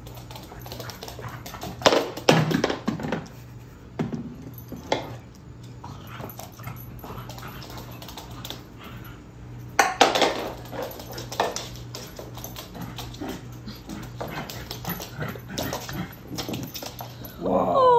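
Three-month-old Great Pyrenees puppy barking in short sharp bursts, loudest in a cluster about two seconds in and another about ten seconds in, with lighter sounds between.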